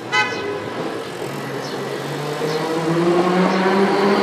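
Iyotetsu Moha 50-type streetcar gives a brief warning signal right at the start, then pulls away. Its traction motors whine in rising pitch and grow louder as it accelerates.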